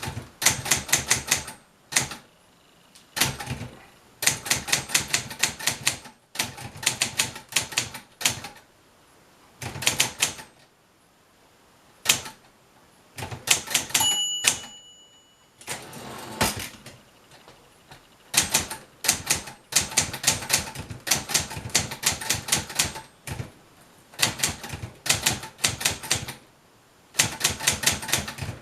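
Keys of a 1970 Brother Opus 901 all-metal manual typewriter striking in quick runs of clicks, with short pauses between runs. About halfway through, the end-of-line bell rings once, signalling that only a few spaces are left on the line.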